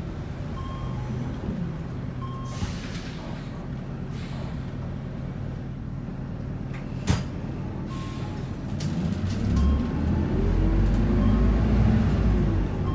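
Isuzu Erga city bus heard from inside the cabin: the diesel engine runs low, with a burst of air-brake hiss a few seconds in and a sharp click about seven seconds in. From about nine seconds in the engine grows louder and rises in pitch as the bus pulls away, and a short electronic beep repeats about once a second near the start and again near the end.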